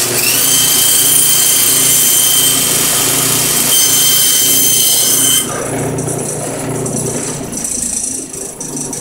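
Band saw running and ripping a board along a fence, a steady high whine over a loud cutting noise. The cutting noise stops suddenly a little past halfway, and the saw runs on more quietly.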